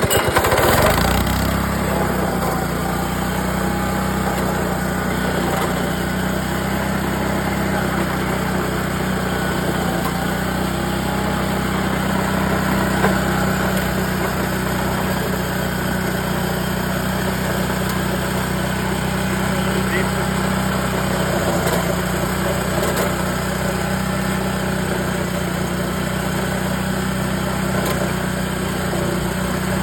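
Venus scarifying machine's engine starting up and then running steadily as the machine scarifies the court surface.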